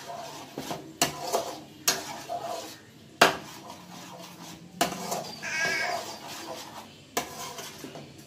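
A steel ladle stirs a thick milk and wheat-flour mixture in a non-stick kadai, scraping the pan, with several sharp knocks of the ladle against the pan.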